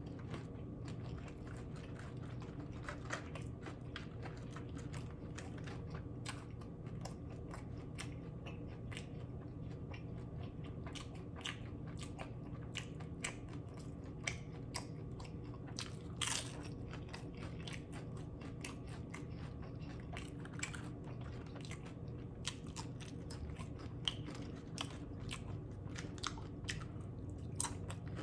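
Close-up chewing and crunching of loaded steak nachos, tortilla chips breaking between the teeth in irregular crunches, with a sharper crunch about 16 seconds in, over a steady low hum.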